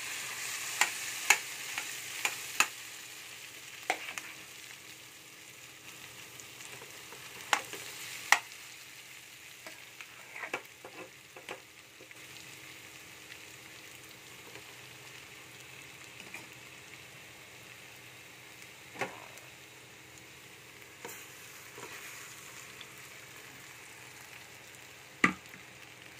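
Semolina halwa sizzling in ghee in a metal kadhai as it is stirred, the hiss strongest in the first few seconds and then settling lower. A metal spoon knocks and scrapes sharply against the pan now and then, several times near the start and a few times later.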